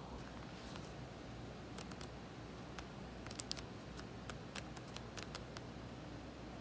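Typing on a laptop keyboard, then the thin pages of a thick law book being flipped: a scattered string of light, sharp clicks, the loudest about halfway.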